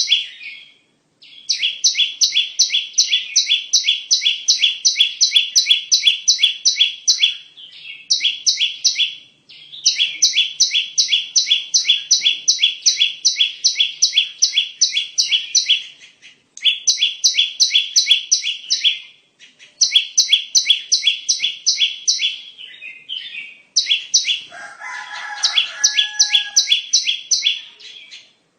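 Prinia (perenjak) song played as a bird lure: long runs of sharp, evenly repeated high notes, about three to four a second, broken by short pauses every few seconds. A lower, different bird call cuts in briefly about three-quarters of the way through.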